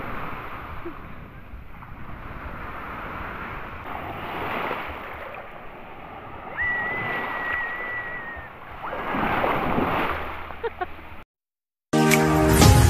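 Waves breaking and surf washing over a shallow shore, the rush swelling and easing with each wave. A long, high, steady note is held for about two seconds midway. Near the end the sound cuts out for a moment, then music begins.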